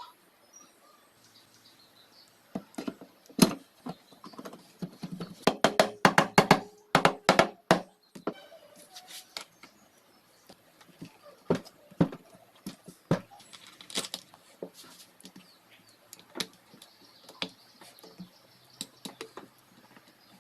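Metal parts and hand tools being handled: scattered clicks, clinks and knocks, with a quick run of ringing clinks about five to eight seconds in.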